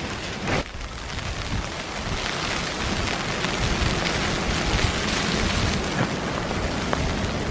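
A wintry shower of sleet pattering on the tarp overhead, a dense spread of small ticks, with a gusty low rumble of wind underneath.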